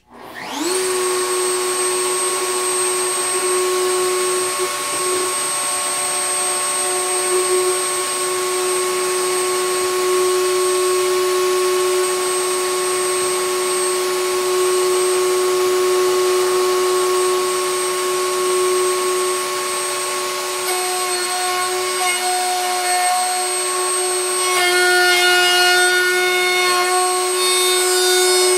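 A table-mounted wood router starts up and spins up within a second to a steady high whine. It runs on while an end-grain butcher-block cutting board is fed past the bit to rout a finger groove. The sound thickens and grows a little louder over the last several seconds.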